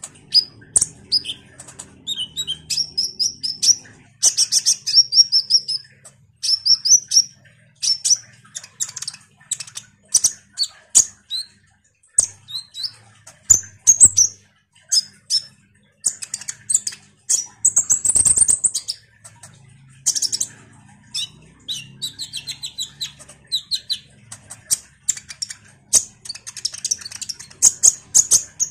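A kolibri ninja sunbird singing a fast, chattering song: rapid high-pitched chirps and short trills in quick runs with brief pauses, and a buzzy trill about two-thirds of the way in.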